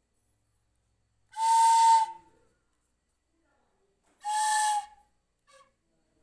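Bamboo flute blown in two short, breathy held notes close in pitch, each about half a second long, about three seconds apart.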